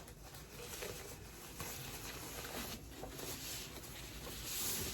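Faint rustling and light scratchy handling noises as an instrument is lifted out of its packaging, with a slightly louder rustle near the end.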